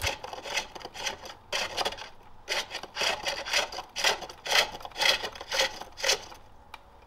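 Pole-lathe bowl turning: a forged hook tool cutting into the spinning green-wood bowl on each treadle stroke, making a rhythmic scraping cut about twice a second, which fades out near the end.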